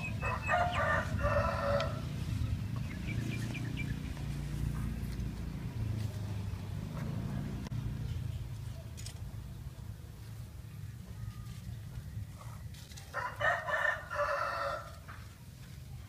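A rooster crowing twice, once just after the start and again about thirteen seconds in, each call lasting a second or two, over a steady low rumble.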